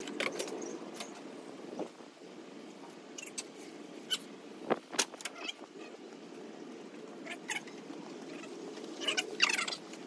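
Steady low outdoor background hum with scattered light clicks and taps. About nine seconds in, a cluster of louder knocks and rustling as a heat pump outdoor condensing unit is carried in close.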